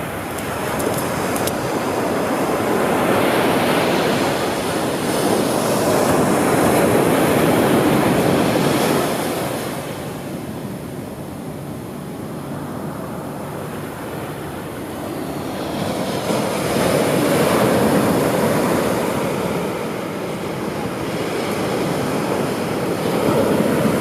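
Ocean surf breaking and washing up a sandy beach, a steady rush that swells and eases twice over.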